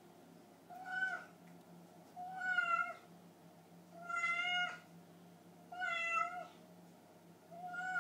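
Hungry domestic cat meowing for food: five separate meows at an even pace, one about every second and a half.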